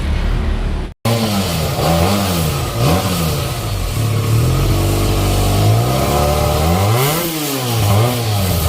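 Benelli 302S's 300cc parallel-twin engine revved through its stock exhaust: repeated throttle blips rising and falling, held at higher revs for a couple of seconds in the middle, then dropping back and blipped again. The sound cuts out for an instant about a second in.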